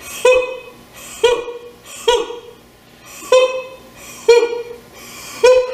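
A woman's voice giving short, sharp sung 'ho' syllables, six in a row at about one a second, each a brief clipped tone. It is a staccato breath-support exercise, each note kicked out from the lower abdominal muscles.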